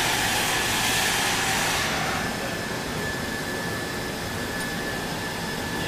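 Steady rushing-air noise from the workshop's air-moving equipment, with a faint steady whine; the higher hiss drops off about two seconds in.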